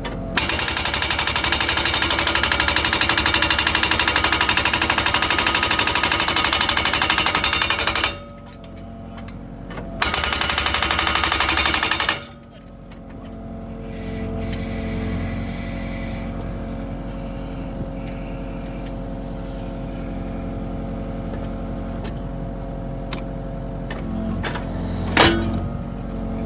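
Grab N Drive GD30S hydraulic post driver hammering a steel post into the ground in rapid repeated strokes, in two bursts of about eight and two seconds. After that the carrying machine's engine runs steadily, with a single knock near the end.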